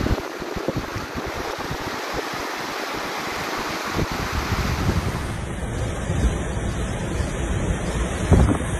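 Fast-flowing floodwater rushing, with wind buffeting the phone's microphone. About halfway through, a heavier low rumble and splashing take over as a minibus drives through the flooded road, with a louder surge near the end.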